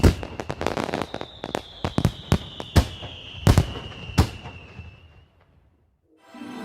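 Fireworks going off: a string of sharp bangs and crackles with a long, slowly falling whistle, dying away about five seconds in. Music begins right at the end.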